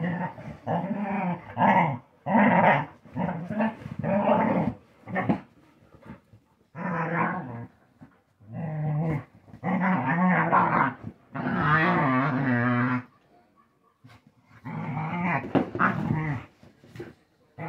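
Two dogs, one of them a Cretan hound, growling in rough play-fighting. The growls come in repeated bursts of about half a second to a second and a half, with short pauses between. It is play, not a real fight.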